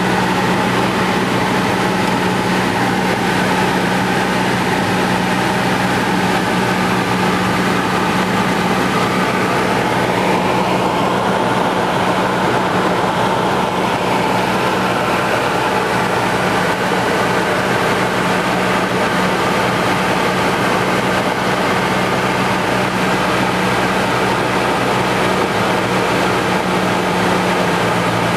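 Cessna 172's piston engine and propeller droning steadily in flight, heard inside the cabin with the rush of air over the airframe.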